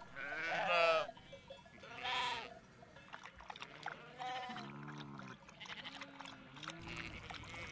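Goats bleating, several separate calls in turn; most are high and wavering, and a deeper call comes about five seconds in.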